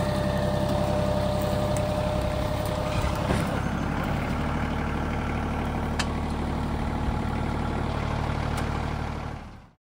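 Compact farm tractor's engine running steadily as it drags an old car out on a chain. There is a clunk a little over three seconds in, after which the engine note settles slightly lower. The sound cuts off just before the end.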